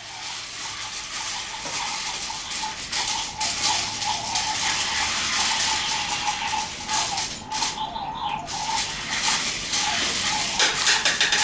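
Toy remote-control vehicles running: small electric motors whirring with a steady, wavering whine, along with busy plastic rattling and clicking.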